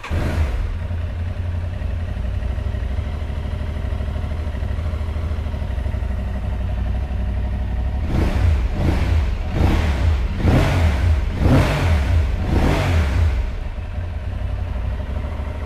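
Aprilia Tuareg 660's 659 cc parallel-twin engine starts right away and settles into a steady idle. About halfway through it is blipped on the throttle five or six times in quick succession, rising and falling each time, then drops back to idle.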